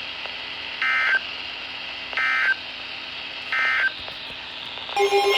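NOAA Weather Radio SAME header: three short, identical bursts of warbling digital data tones about a second apart, the coded header that announces a new alert (a flood warning) and sets off weather-alert receivers. Near the end, a steady alert tone starts.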